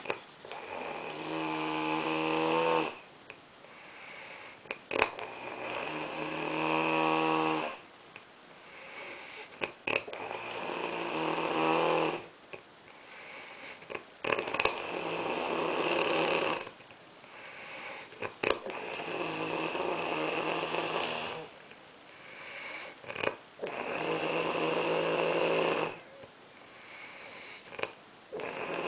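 A sleeping person snoring in a steady rhythm: each long, pitched snore grows louder and then cuts off, about every four to five seconds, with a few short clicks in the quieter gaps between snores.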